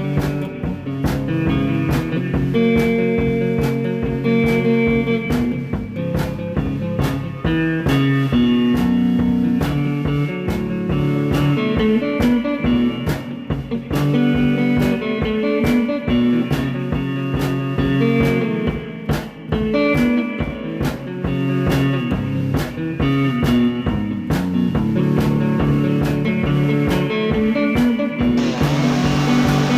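Blues-rock background music with guitar and drums and a steady beat. About a second before the end, a chainsaw engine starts running under the music, its pitch gliding.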